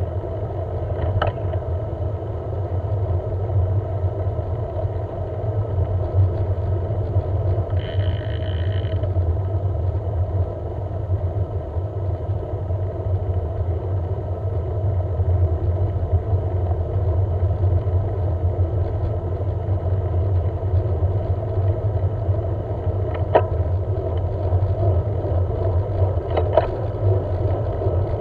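Steady low rumble of road noise on the move, with a few brief clicks and a short high tone about eight seconds in.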